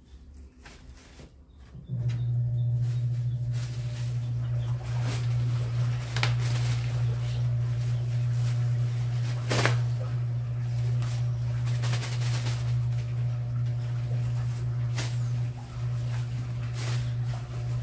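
A steady low hum starts about two seconds in and carries on unbroken, with occasional short rustles and knocks from plastic bags being handled.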